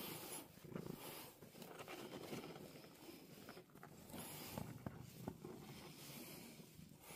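Tortoiseshell cat purring faintly, close to the microphone.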